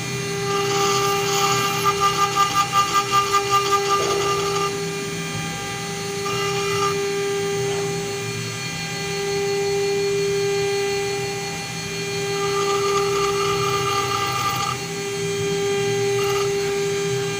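CNC router spindle whining steadily as a small engraving bit cuts into a brass plate. The cutting noise grows rougher for a few seconds near the start, pulsing about five times a second, and again for a couple of seconds later on.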